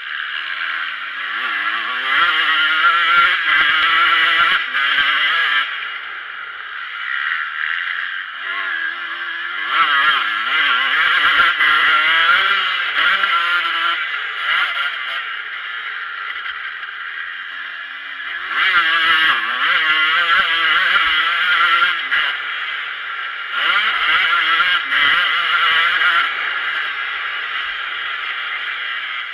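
Motocross bike engine heard from on board, revving hard and falling off as the rider opens and closes the throttle around the dirt track: four loud stretches of climbing engine pitch between quieter off-throttle stretches.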